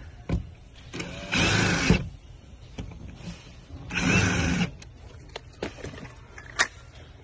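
Ryobi cordless drill running in two short bursts, about 2.5 seconds apart, as it drives two screws through a plastic wall mount into plywood. A few light knocks come between them.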